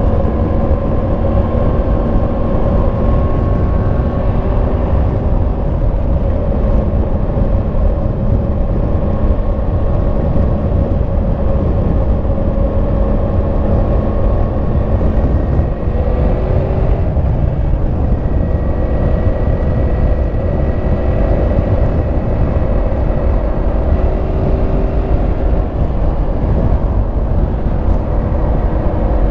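Yamaha MT-10 SP's 998 cc crossplane inline-four running on the stock exhaust at a steady cruise, with heavy wind rumble on the microphone. The engine note shifts briefly about halfway through, then settles again.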